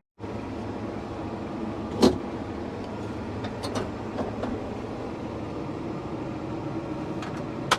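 Tractor engine running steadily, with a sharp knock about two seconds in, a few lighter ticks, and another sharp click near the end.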